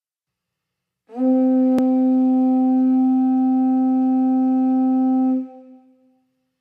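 Conch shell trumpet (pū) blown in one long steady note that starts about a second in, holds for roughly four seconds and then dies away. A single sharp click comes shortly after the note begins.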